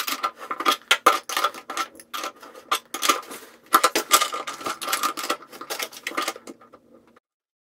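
Metal hand tools clinking and clanking against a chrome bathtub drain as a drain wrench is worked with pliers and an adjustable wrench to screw the new drain down. A rapid, irregular series of clicks that cuts off suddenly about seven seconds in.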